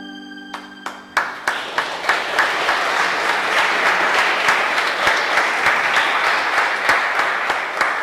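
Audience applauding: a few scattered claps about a second in, quickly building into steady applause, over the last held chord of the backing music as it dies away.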